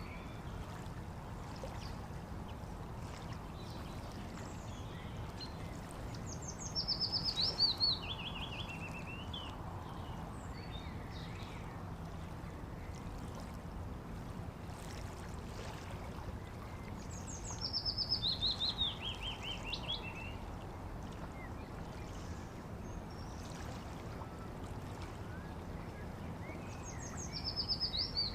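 Steady rushing of water along a bank, with a songbird singing a quick descending run of notes three times, about ten seconds apart.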